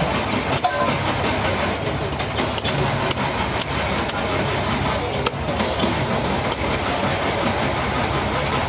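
Knife scraping and knocking on a large tripletail fish on a wooden chopping block, a few sharp knocks standing out, over a steady low rumble.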